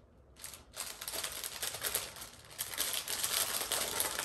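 Thin plastic packaging bag crinkling and crackling in the hands as it is worked open, starting about a second in and going on steadily after a brief first rustle.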